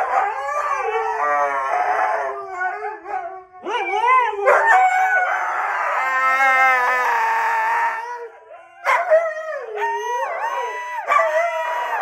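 A group of huskies howling together: long pitched howls that rise and fall and overlap one another. They break off briefly twice, about three and a half and eight and a half seconds in, then start again with wavering, up-and-down howls.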